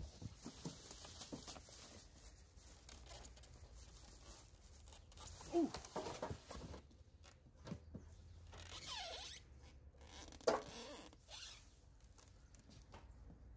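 Plastic wrapping and cardboard rustling and scraping as the heavy head of a benchtop drill press is handled in its packing box. A few short sliding cries stand out, the loudest about six and ten seconds in.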